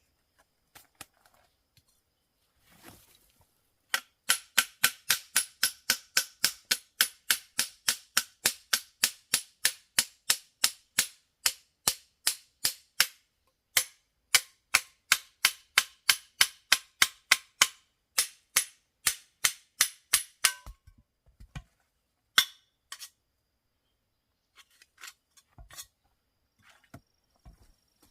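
A fast, even run of sharp knocks, about three or four a second, lasting some sixteen seconds with a short break about halfway, followed by a few scattered knocks.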